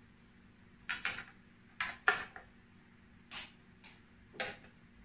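Hard plastic battery box being handled and fitted onto a metal tripod stand: a scattered series of short clicks and knocks, the loudest about two seconds in.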